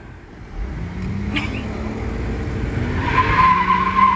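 Car engine running and pulling away, with a loud, high steady tyre squeal from about three seconds in.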